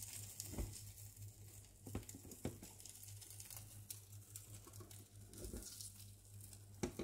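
Omelette frying quietly in an oiled pan with faint crackling, a few light clicks and knocks, and a steady low hum underneath.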